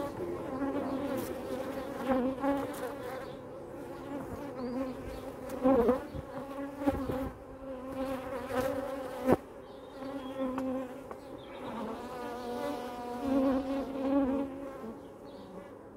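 Honeybees buzzing around an open hive, a steady hum that wavers in pitch as bees fly about. Two sharp knocks stand out, about six and nine seconds in.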